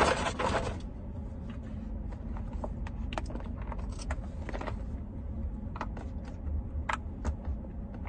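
Plastic packaging crinkling for about a second, then scattered light clicks and taps as a silicone pop-it fidget is unwrapped and handled, over a steady low rumble.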